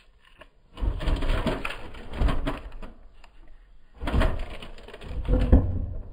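Hands pressing and rubbing duct tape down over a plastic-wrapped termite bait station on a wooden board: crinkling, rubbing noise in two bouts, about a second in and again near four seconds, with a low rumble under them.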